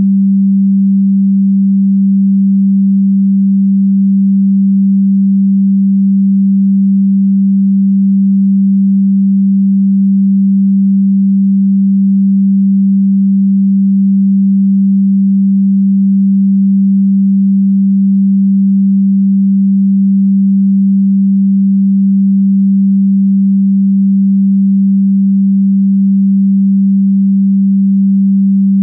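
A steady, low, pure electronic tone at one unchanging pitch.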